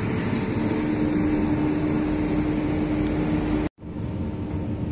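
Steady hum of an idling truck engine with a constant droning tone. It cuts off abruptly about three and a half seconds in and gives way to a quieter steady hum.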